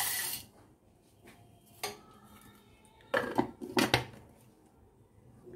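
Dry flattened rice (poha) poured from a bowl into a mixer-grinder jar with a brief rustling rush, then a few clicks and clatters as the jar and its lid are handled. The grinder is not running.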